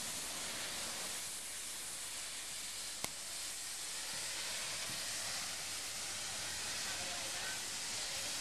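Steady hiss of steam escaping from an LMS 3F 'Jinty' 0-6-0 tank engine standing at the platform, with a single sharp click about three seconds in.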